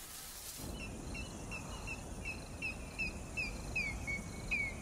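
Savanna ambience: a bird repeats short chirps that fall in pitch, about three a second, over a low rumbling background. Both come in about a second in.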